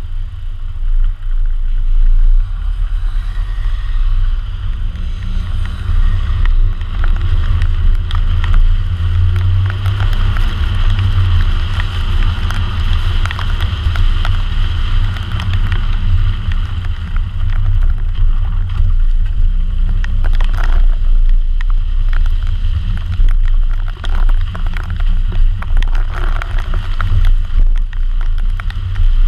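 Car driving on a rain-soaked road, heard from a camera mounted on the outside of the body beside a wheel: the tyres hiss through water and spray over a heavy, steady wind rumble on the microphone.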